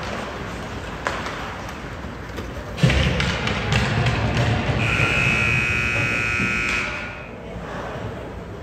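Ice-arena scoreboard buzzer sounding one steady tone for about two seconds. A loud thump comes about two seconds before it, typical of a puck or player hitting the boards.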